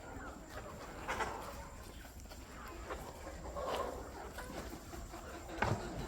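Chickens clucking: a handful of short, scattered calls over a low steady background, the loudest near the end.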